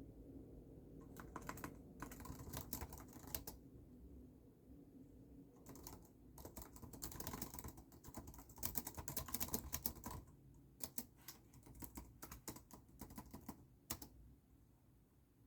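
Typing on a computer keyboard: bursts of rapid key clicks with short pauses between, stopping near the end.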